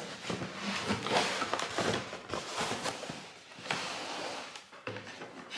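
A cardboard shipping parcel being opened by hand, with rustling and scraping of cardboard and packaging and scattered sharp knocks.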